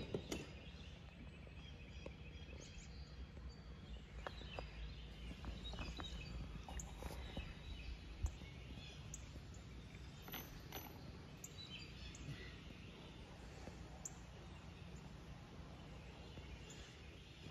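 Faint outdoor ambience: a steady low rumble with a few birds chirping. Occasional faint clicks and knocks, with one sharper knock about eight seconds in.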